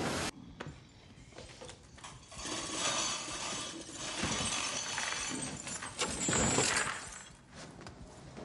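Metal chain rattling and clinking in several irregular stretches. The loudest comes a little past the middle. Just at the start, a louder noise cuts off abruptly.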